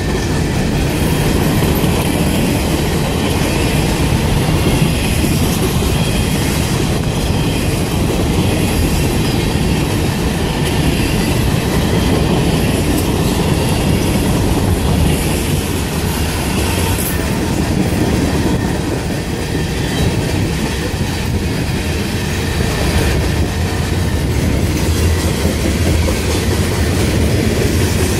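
Freight train cars rolling past, steel wheels clattering over the rail joints in a steady, loud rumble.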